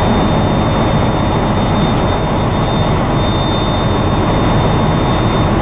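Semi-truck diesel engine idling in the cab with the heater fan blowing, under a steady high-pitched low-air warning buzzer: the air brake system's pressure is still below the warning level while the compressor builds it up.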